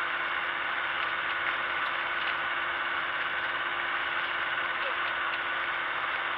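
MCR01 light aircraft's engine idling with the propeller turning, heard inside the cockpit while taxiing: a steady hum with one constant tone.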